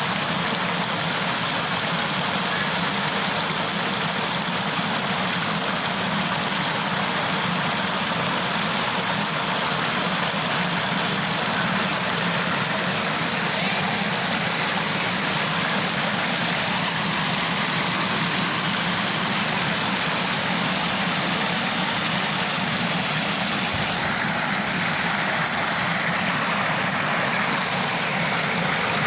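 Small waterfall: water falling and gurgling in a steady, unbroken rush.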